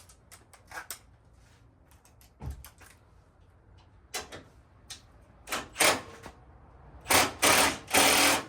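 Clicks and knocks of hand tools and a sheet-metal body panel being worked into place on a truck, getting louder toward the end, where two loud, longer scraping bursts come about seven and eight seconds in.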